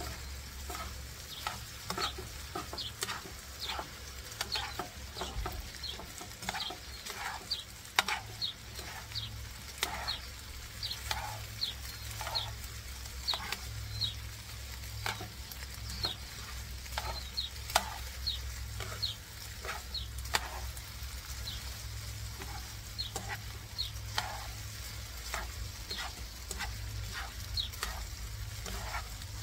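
Chicken tocino pieces sizzling in a frying pan while being stirred and turned with metal tongs, which click and scrape against the pan many times throughout.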